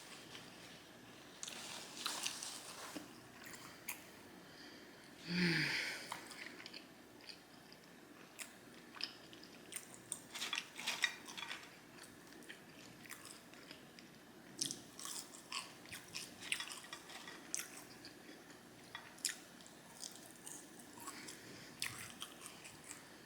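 A person chewing and biting food with wet mouth clicks and smacks, and a short throaty sound about five seconds in.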